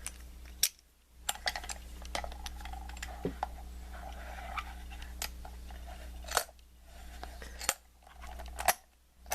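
Handling noise: a scattering of sharp small clicks and taps as a padlock and its picking tools are handled, over a steady low hum.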